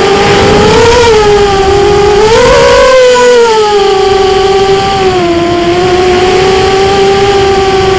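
Brushless motors and 5045 bullnose propellers of an ImmersionRC Vortex 285 racing quadcopter in flight, a high whine whose pitch follows the throttle: it rises about one second in and again at about two and a half seconds, then settles and holds steady.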